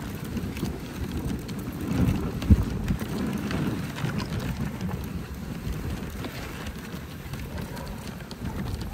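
Dog sled running over a packed snow trail behind a husky team: steady scraping and rumbling of the runners, with a sharp knock about two and a half seconds in.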